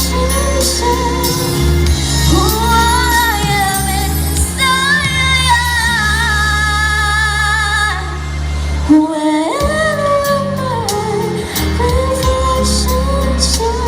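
A woman singing a ballad over instrumental accompaniment, holding long notes with vibrato and gliding up and down through runs, with a brief dip in the accompaniment about nine seconds in.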